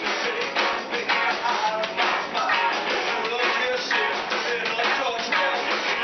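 Live rock band playing: electric guitars and a drum kit keeping a steady beat.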